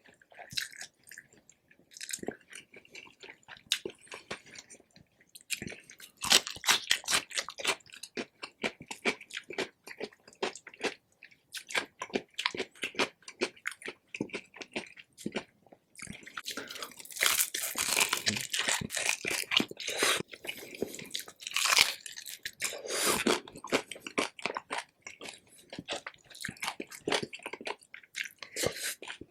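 Close-up crunching and chewing of crispy pork belly skin: runs of sharp crackling bites between quieter chewing, loudest about a quarter of the way in and again just past halfway.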